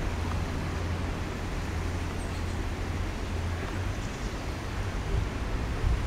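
Steady low rumble of distant road traffic, with no clear bird call standing out.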